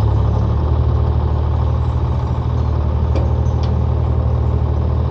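Heavy equipment engine running steadily, a deep, even rumble with a fast pulse.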